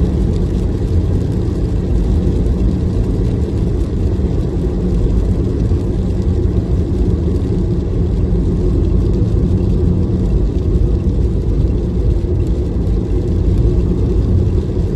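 Steady low rumble of a car on the move, its engine and tyre noise running evenly.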